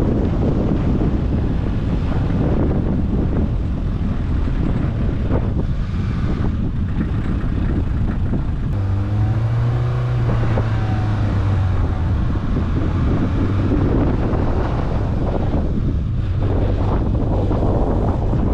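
Car driving along a road: steady wind and road noise buffeting the microphone. About halfway through, a low engine hum sets in suddenly, holds for several seconds, then sinks back into the noise.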